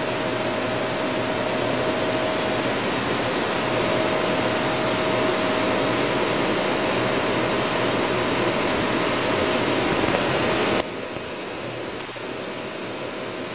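CNC machining center face-milling an AL7075-T651 aluminium plate: a loud, steady hiss with a steady mid-pitched tone. About eleven seconds in, the sound drops suddenly to a quieter hiss and the tone stops.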